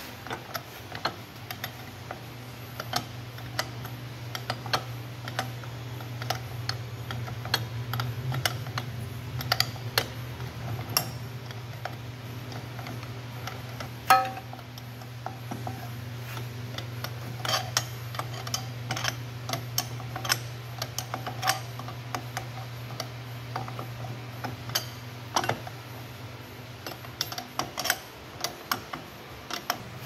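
Hand tools clicking and clinking on metal as the centre screw of a three-jaw hub puller is worked on a Toro 3505-D wheel hub, with one much sharper metallic clack about halfway. A steady low hum runs underneath.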